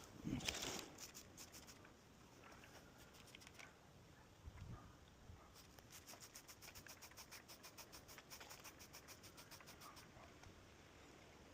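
Faint handling rustle and a soft thump, then from about halfway in a steady run of light ticks, about five a second: a bicycle freewheel clicking as the wheel or pedals turn.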